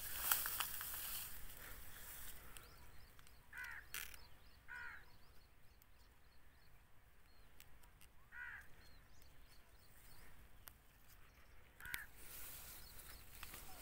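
Faint bird calls outdoors: about four short calls a few seconds apart, over a light background haze.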